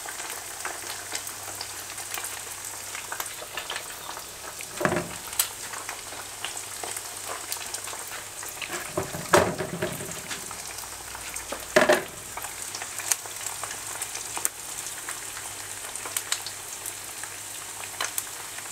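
Chicken wings deep-frying in hot palm oil, a steady crackling sizzle with many small pops. The oil is on heat set just below high. Three louder thumps stand out about 5, 9 and 12 seconds in.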